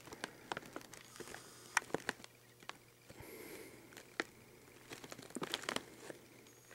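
Potato chip bag crinkling as it is held and turned in the hands: irregular small crackles and rustles, busiest about five and a half seconds in.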